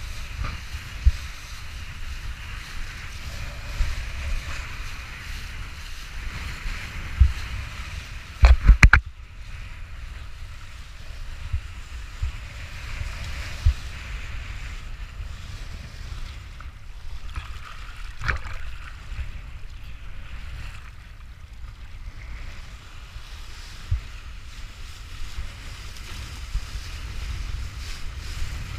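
Wind buffeting the microphone with a steady low rumble while a kiteboard skims over choppy water, spray hissing underneath. A rapid cluster of hard knocks comes about a third of the way in, the board slamming into chop, and another single knock near two-thirds.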